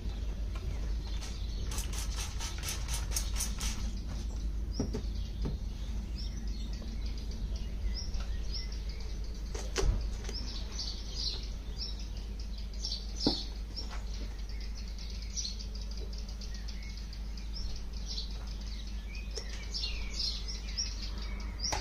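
A trigger spray bottle of Sonax Xtreme Brilliant Shine Detailer pumped in a quick run of sprays over car paint, starting about a second in. Small birds chirp through the rest, over a steady low rumble.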